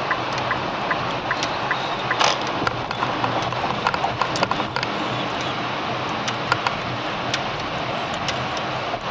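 Steady road and engine noise heard inside a moving car, with scattered sharp clicks and ticks.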